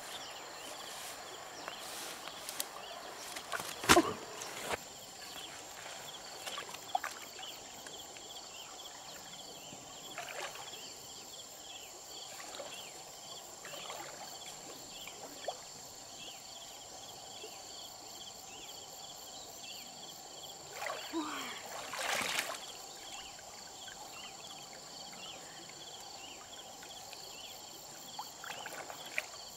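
Insects droning steadily at a high pitch, with water sloshing around legs as a person wades in a shallow river. Scattered small knocks, a sharp knock about four seconds in, and a louder stretch of splashing and rustling a little past the middle.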